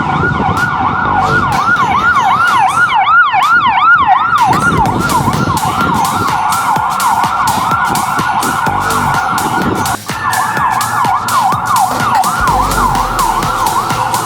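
Electronic emergency siren sounding a fast yelp: a rapid, even run of pitch sweeps, about three a second. It breaks off for a moment about ten seconds in, then carries on.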